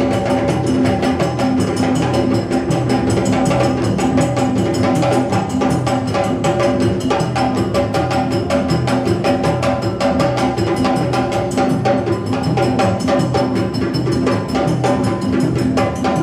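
An ensemble of djembe hand drums played together in a dense, steady rhythm.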